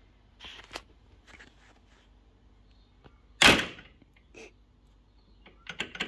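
Car door being shut on its newly fitted lock: a few light clicks, then one sharp bang as the door latches about three and a half seconds in, followed by quick latch clicks near the end.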